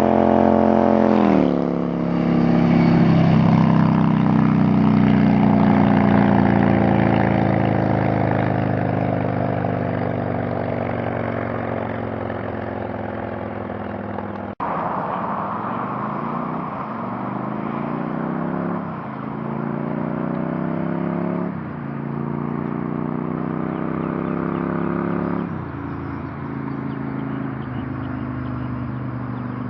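Yamaha XVS1100 Dragstar's V-twin engine and loud exhaust on the move. The note drops sharply about a second in and slowly sinks as the bike slows. After a break near the middle, it pulls away through the gears: three rising sweeps, each cut off by a gear change, before settling to a steadier run.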